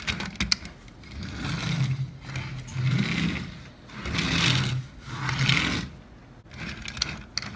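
Engine-revving noises for a hand-pushed toy car: about five swells a second or so apart, each rising and falling.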